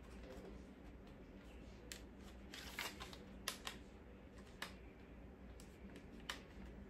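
Faint handling noise of a plastic toy gel blaster rifle being turned over in the hands: a handful of scattered light clicks and taps over a low steady hum.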